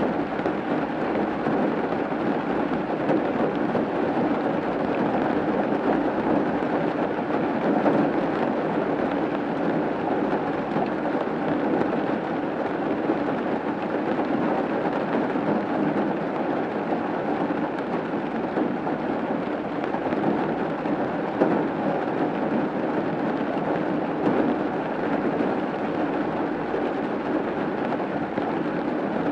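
Steady rain drumming on a roof: a dense, even patter of drops that neither builds nor fades.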